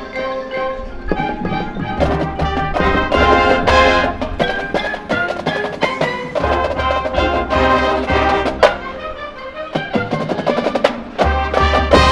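High school marching band playing its competition show, with wind instruments holding chords and the drums prominent, many sharp strikes throughout.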